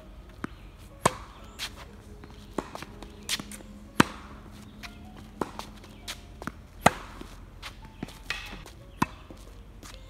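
Tennis rally on a hard court: sharp pops of racket strings striking the ball, with ball bounces on the court between them, a hit or bounce about every second. The loudest hits, from the racket near the microphone, come about one, four, seven and nine seconds in.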